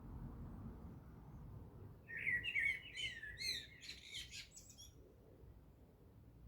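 A small bird's song: a quick burst of high chirping, twittering notes about two seconds in, lasting around three seconds, over a faint low background rumble.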